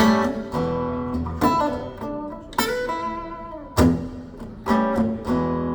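Recorded music played through Børresen C1 stand-mount loudspeakers: an instrumental guitar passage between sung lines, plucked chords struck about every second and ringing out, heard as picked up by a phone in the room.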